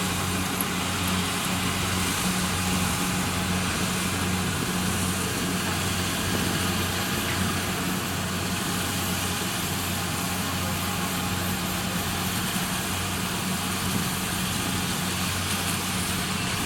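Kubota DC60 combine harvester's diesel engine running steadily, with a constant low hum.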